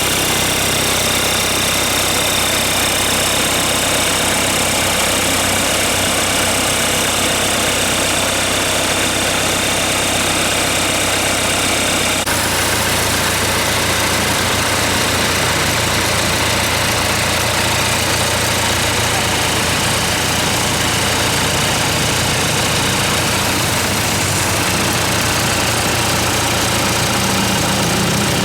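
Mitsubishi 4D34 turbo diesel engine, a four-cylinder, running steadily at idle on a test run. The engine note changes abruptly about twelve seconds in.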